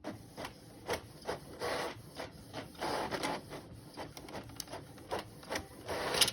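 Printer mechanism running, starting suddenly: irregular clicks and short whirring bursts of the print head and paper feed.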